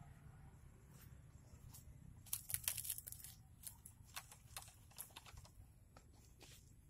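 Hands scraping and flinging dry soil, dead leaves and twigs from the base of a dug-up lantana shrub: a burst of dry crackling and rustling about two and a half seconds in, then scattered single snaps and crackles.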